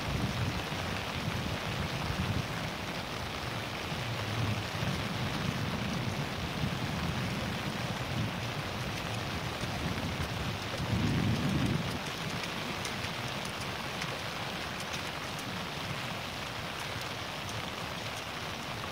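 Steady outdoor hiss with low rumbling gusts, the loudest about eleven seconds in.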